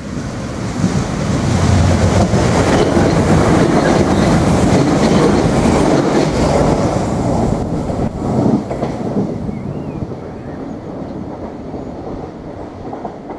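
Irish Rail 22000 class diesel multiple unit passing close by at speed without stopping. The train noise builds over the first couple of seconds, stays loud for about six seconds as the cars go by, then fades steadily as it draws away.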